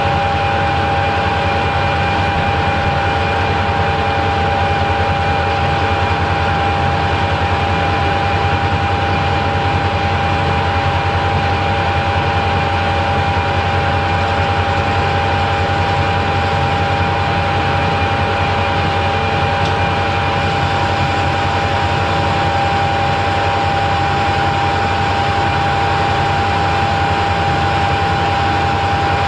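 Harrison centre lathe running steadily at constant speed, with a steady gear whine over the hum of the machine, while a drill in the tailstock is fed into the end of a spinning metal bar.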